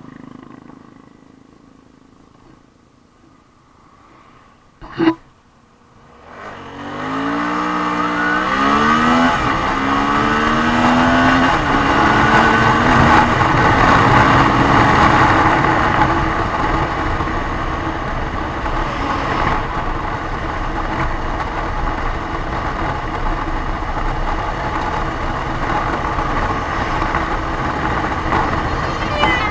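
Suzuki V-Strom 650's 645 cc V-twin engine, quiet at first, with a single sharp knock about five seconds in. Then a full-throttle launch: the engine revs rise and fall back several times as it is shifted up through the gears, and it settles into a loud steady rush of engine and wind at high speed.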